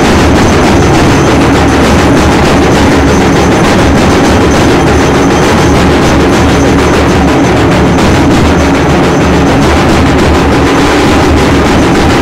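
Loud, continuous din of a Hindu evening aarti: temple bells, gongs and drums beaten together without a break.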